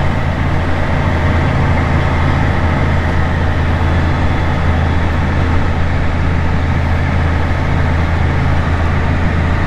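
Tractor's diesel engine running steadily with a deep, even hum, heard from inside the cab.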